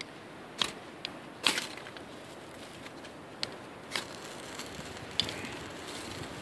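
A knife blade is scraped hard down a ferrocerium rod in a handful of short, sharp scrapes about a second apart, the loudest about a second and a half in. Each scrape throws sparks onto cotton-ball tinder soaked in petroleum jelly and dipped in wax, to light it.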